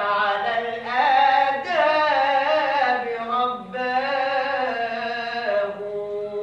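A male munshid singing an Islamic ibtihal unaccompanied, drawing out long melismatic vowels that glide up and down in pitch without clear words.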